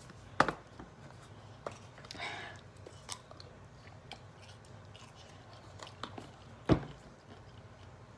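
Chewing and crunching on pickles, with scattered sharp clicks and knocks; the two loudest come about half a second in and near the end.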